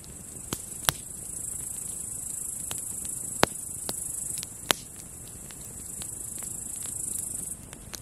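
A steady high-pitched insect trill from grasshoppers, which cuts off suddenly near the end, over a campfire's burning wood crackling with sharp pops, three of them loud.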